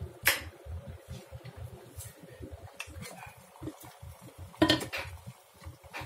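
Stainless steel Turkish double teapot being handled: a sharp click near the start, a few light metal clinks, then a louder clatter of metal on metal just before the fifth second as the upper teapot is lifted off the electric kettle and set down.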